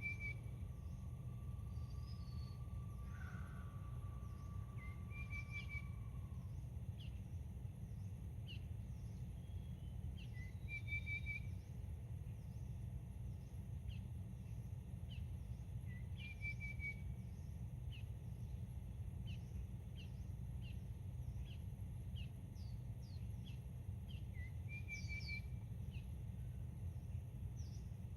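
Songbirds calling: one bird repeats a short trilled phrase about every five seconds, among scattered brief high chirps. Beneath them runs a constant low rumble, and a faint steady tone is held until about six seconds in.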